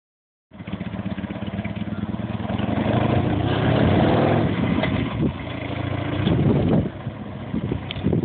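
Harley-Davidson Sportster's V-twin engine running as the motorcycle rides around. It grows louder toward the middle, with some rises in engine speed, and drops off sharply near the end as the bike moves away.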